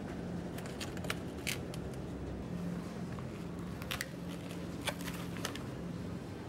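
Supermarket ambience: a steady low hum, with scattered light clicks and crinkles from a plastic blueberry punnet being picked up and from the cloth tote bag and its contents moving while walking. A cluster of clicks comes in the first second and a half, and a few more come about four and five seconds in.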